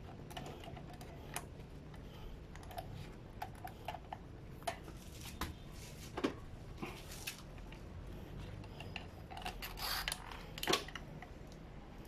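Gloved hands fiddling with small metal bike parts: scattered light clicks and taps, with a couple of louder ones near the end.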